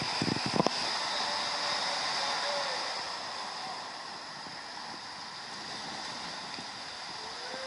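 Water rushing under a raft as it slides down an enclosed tube waterslide, with a few knocks of the raft against the tube in the first second and a brief faint shout a couple of seconds in.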